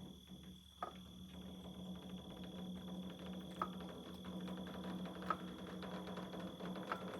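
A steady low machine hum, with a sharp click every second or two.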